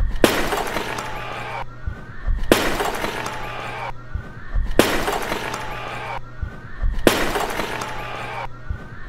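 A clay jar thrown down onto a stage floor and shattering, four times, one crash about every two and a quarter seconds. A steady low hum runs underneath.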